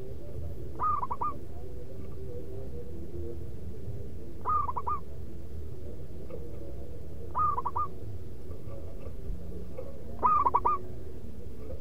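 Zebra dove (perkutut) cooing: four short phrases of three or four quick notes each, about three seconds apart, the last one loudest.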